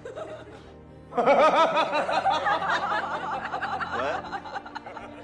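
A man laughing in a film excerpt: a long run of quick cackles, starting about a second in and tailing off softer near the end.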